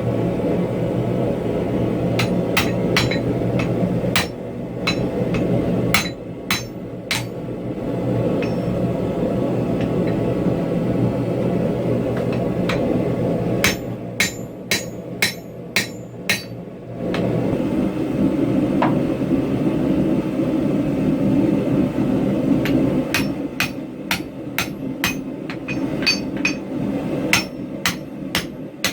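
Blacksmith's hammer striking hot railroad-track-anchor steel on an anvil, in runs of quick blows about two or three a second. A steady rushing noise sits underneath and drops away briefly in the middle.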